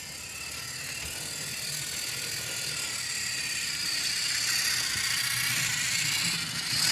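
Motorized Thomas & Friends Gordon toy engine running along blue plastic track: a steady motor-and-wheels sound that grows gradually louder as the engine draws near.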